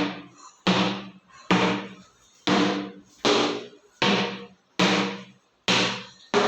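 A soft tennis ball bounced over and over on the face of a fibre cricket bat, a ping test of how well the bat rebounds. There are nine knocks at an even pace of a little over one a second, each ringing briefly with a hollow tone.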